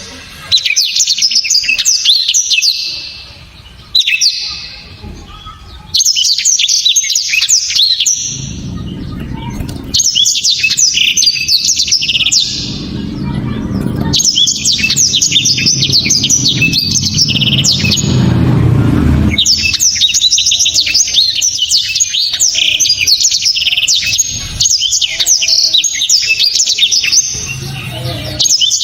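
Blackthroat (black-throated canary) singing loud, sharp song: long, fast phrases of high chirps and trills in several bursts separated by short pauses, with a low background rumble through the middle stretch.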